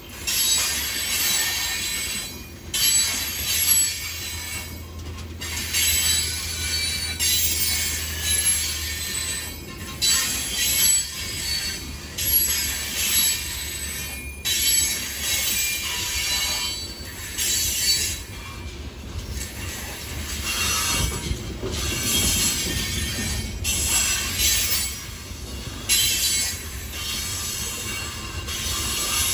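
Freight train of open-top hopper cars rolling past, its steel wheels squealing against the rail. The noise swells each time a set of wheels goes by, about every one to two seconds, with a low rumble under it for the first several seconds.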